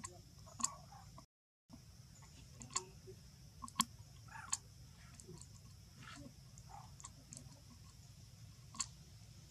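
Faint outdoor ambience: a steady high hiss with scattered sharp clicks and ticks, and the sound cuts out completely for a moment about a second in.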